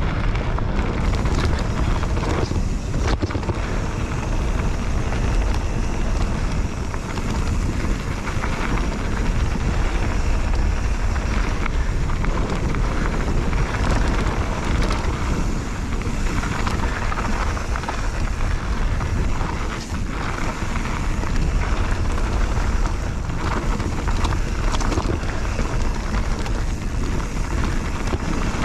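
Wind rushing over an action camera's microphone on a mountain bike moving at speed, with steady tyre noise and frequent short rattles and knocks from the bike over rough trail.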